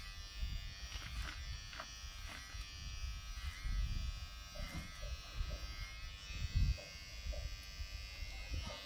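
A steady electrical buzz, with an uneven low rumble underneath.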